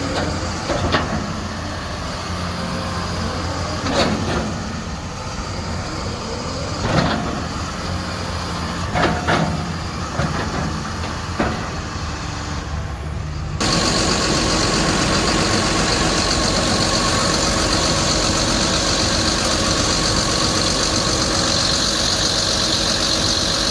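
Caterpillar 320E L excavator's diesel engine running, with a few short sharp knocks or hisses in the first half. About fourteen seconds in, the sound switches abruptly to a louder, steady run with a high whine.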